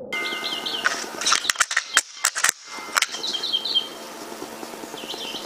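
Small songbird chirping outdoors in short repeated phrases, heard near the start, again around the middle and near the end. Several sharp clicks or knocks come in between.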